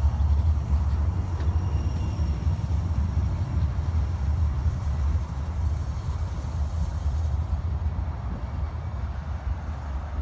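A Stadler Citylink Class 399 tram-train pulling away along the track. Its low rumble fades slowly as it draws off.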